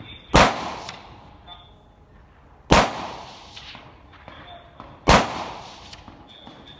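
Three semi-automatic carbine shots fired slowly from the prone position, about two and a half seconds apart, each trailing off in echo.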